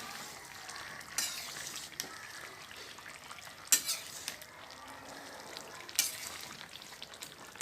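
A pan of soybean, cauliflower and potato curry sizzling softly as it cooks, with a few sharp clinks of a spoon against the pan as it is stirred.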